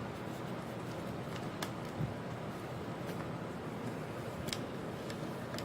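A few faint clicks and a light tap as the laptop's case and cover are handled and loosely set back in place, over a steady background hiss.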